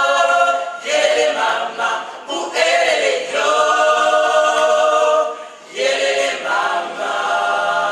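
Gospel choir singing unaccompanied in long held chords, in several phrases with short breaks between them.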